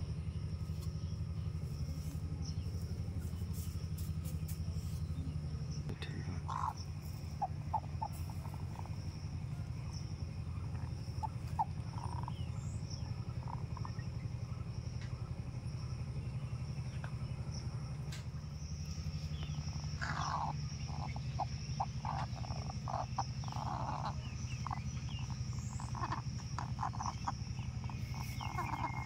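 Broody hen giving short low clucks, scattered at first and coming in quick runs near the end, over a steady low hum.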